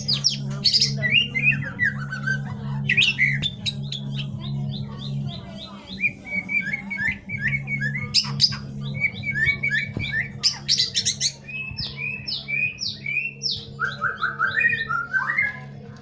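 White-rumped shama singing a varied song of clear whistles, chattering phrases and quick series of repeated notes, over a steady low hum.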